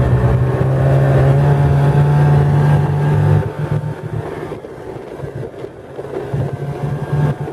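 Snowmobile engine running as the machine rides across snow. It is steady and loud for about the first three seconds, then drops to a lower level and picks up again briefly near the end.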